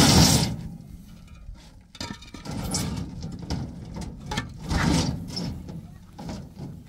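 Hollow concrete blocks scraping and knocking as they are dragged across a pickup truck's bed and set down on a stack. The sound comes in irregular scrapes and knocks, loudest right at the start and again about five seconds in.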